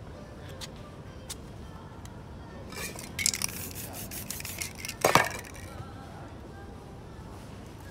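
Metal palette knife on a painted canvas: a few light taps, then about three seconds in a two-second stretch of rasping scrapes, and a sharp knock about five seconds in.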